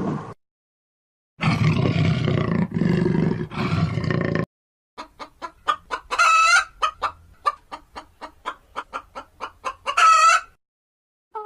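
First a loud, rough animal call lasting about three seconds. Then domestic hens clucking in a quick run of short notes, about three a second, broken twice by a louder, drawn-out squawk.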